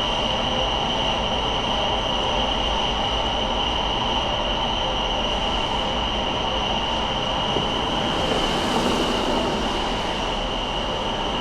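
Steady street background noise with a constant high-pitched tone running through it; a hiss swells briefly about eight seconds in.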